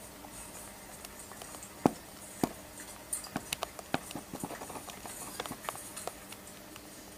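Irregular knocks and clicks from a rural sound-ambiance track on a model railway layout, over a faint steady hiss; the two loudest knocks come about two and two and a half seconds in.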